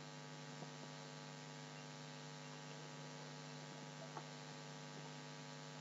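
Faint, steady electrical hum over a light hiss, with two tiny ticks.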